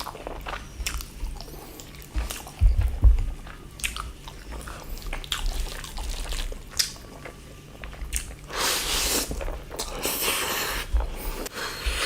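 Close-up chewing and biting of food, with repeated short wet clicks and crunches. There are a few dull low thumps between about 2.5 and 3 seconds in, and a longer hissing, slurping stretch from about 8.5 to 11 seconds.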